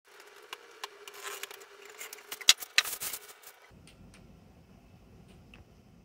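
Packing tape being worked off a cardboard box by hand: irregular crackling and rubbing with sharp clicks, loudest about two and a half to three seconds in, for about the first three and a half seconds. After that only a faint low rumble and a few small clicks.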